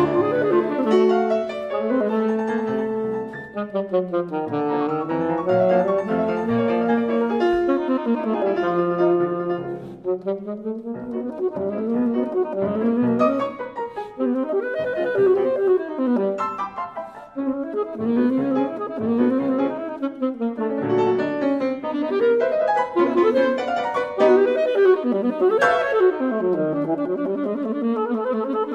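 Alto saxophone and grand piano playing classical chamber music together, the saxophone in quick runs sweeping up and down over a busy piano part.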